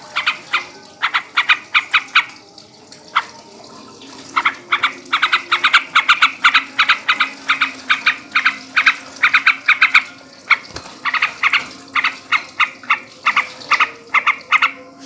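Male yellow-vented bulbul (trucukan) singing its chattering 'ngebren' song: long runs of quick, sharp repeated notes, several a second, broken by short pauses.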